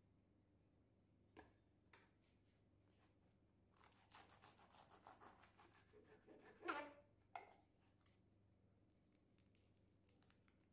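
Near silence with faint handling noises: two light clicks, then a few seconds of soft scratching and rustling that ends in a couple of sharper scrapes.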